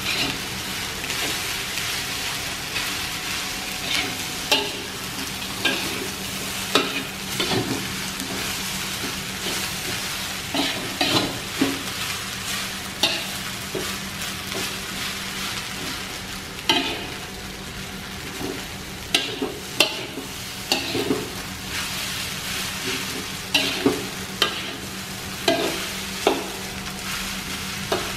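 Metal spatula scraping and knocking against an aluminium wok in irregular strokes as fried rice is stir-fried, over a steady sizzle.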